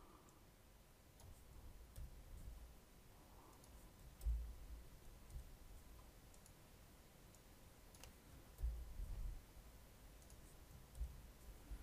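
Faint, scattered clicks of a computer mouse and keyboard, a few seconds apart, with a few soft low thumps, the loudest about four and nine seconds in.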